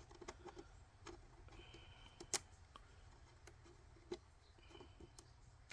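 Near silence with a few faint, scattered clicks and ticks of fingers picking at and peeling the protective liners off adhesive strips.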